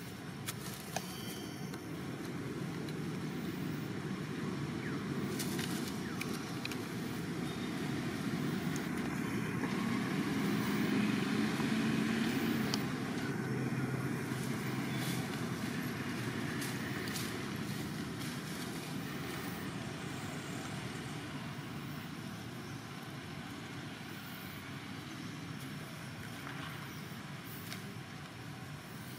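A motor vehicle passing by: a low, steady engine and road noise that swells to its loudest about halfway through and then slowly fades.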